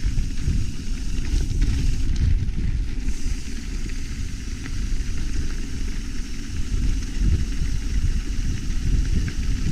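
Wind rumbling on a GoPro's microphone while a mountain bike is ridden along the trail, mixed with tyre and trail noise, with a few faint clicks.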